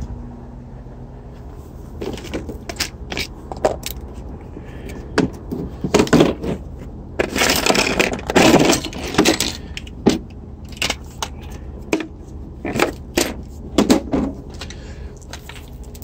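Hard plastic soldering-gun case being handled and opened: a string of sharp clicks and knocks, with a dense stretch of rattling and scraping around the middle as tools are taken out of it.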